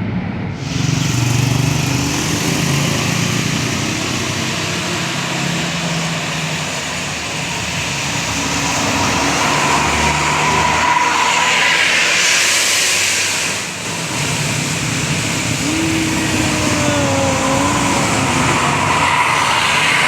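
Road traffic passing: engines and tyre noise of vehicles driving by, with one vehicle passing close about twelve seconds in.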